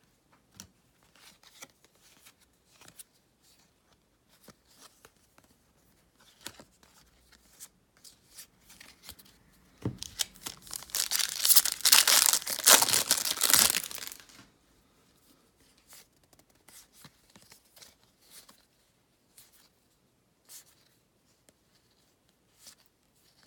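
A foil baseball-card pack wrapper being torn open, loud and crinkly for about four seconds near the middle. Before and after it, faint clicks and rustles of cards being handled.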